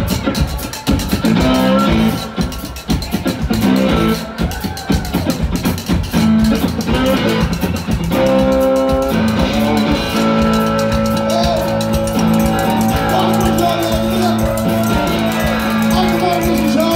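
Live band music with a frottoir, a vest washboard, scraped and struck in a quick even rhythm over guitar; from about nine seconds in, held low notes carry under the scraping.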